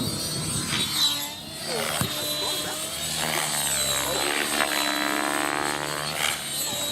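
Radio-controlled model helicopter flying, its motor and rotor whine rising and falling in pitch as it manoeuvres.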